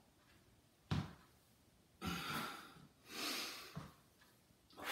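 A man breathing audibly through a lunge: a sharp footstep thump about a second in as he steps out, then two long breaths, one in and one out, around the two- and three-second marks.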